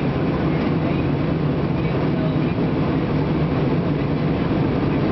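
Steady jet airliner cabin noise in flight: the engines and rushing air make an even low drone with no change.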